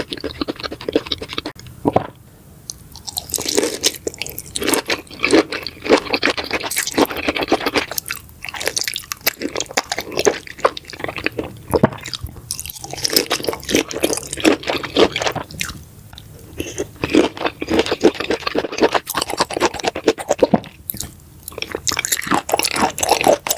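Raw lobster being chewed and crunched in a mukbang: many quick wet, crackling bites and chews, with brief pauses between mouthfuls.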